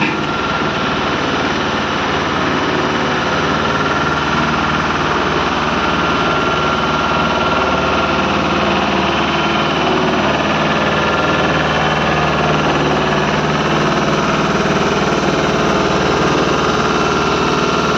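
Heavy diesel engines of a heavy-haul convoy running steadily under load while hauling a many-axle hydraulic trailer, with a fast, even clatter.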